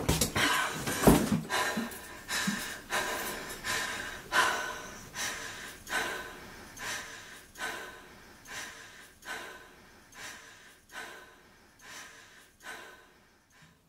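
A woman's heavy, distressed breathing in a small room, about one breath every 0.8 seconds, gradually getting quieter as she calms. A dull thump about a second in.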